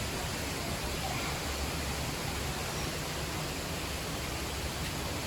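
Steady, even rushing noise of the indoor rainforest exhibit's ambience, with no distinct events.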